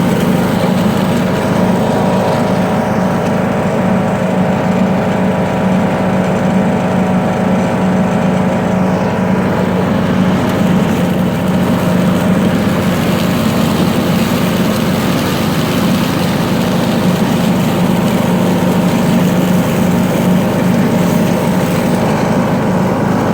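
John Deere D105 riding lawn mower's 17.5-HP single-cylinder engine running at a steady speed with a constant hum, stopping abruptly at the very end.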